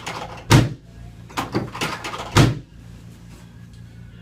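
Chiropractic drop table: sections of the table dropping under the chiropractor's thrusts, giving two loud clunks about two seconds apart with lighter knocks between them, over a steady low hum.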